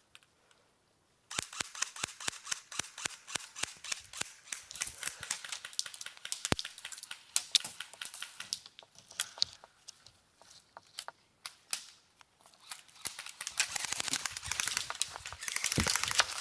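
Airsoft guns firing: a quick, uneven run of sharp snapping shots that starts suddenly about a second in and keeps going, several shots a second.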